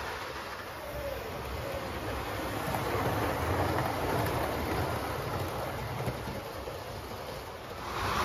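Model trains running on the layout's track: a steady rumble of wheels and motor that grows a little louder as a model diesel multiple unit passes close by, about three to five seconds in.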